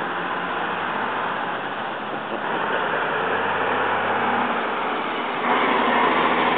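Road traffic on a multi-lane city road: a steady rush of cars passing, with faint engine hum, stepping louder about five and a half seconds in.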